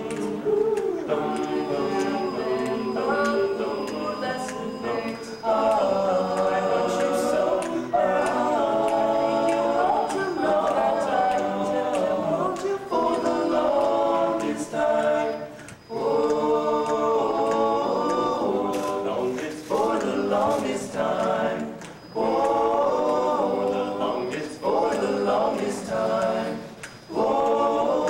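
High school vocal ensemble singing a cappella in several parts, in sung phrases broken by brief pauses.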